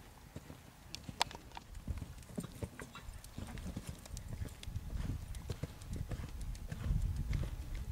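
Horse's hoofbeats as it canters and jumps on soft arena footing: irregular dull thuds with a few sharper clicks, growing louder over the last few seconds.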